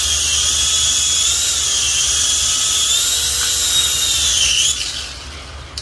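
Mini toy drone's small electric motors and propellers spinning with a high, steady whine while held in the hand, the pitch wavering slightly. About five seconds in the whine falls and dies away as the drone's battery runs flat.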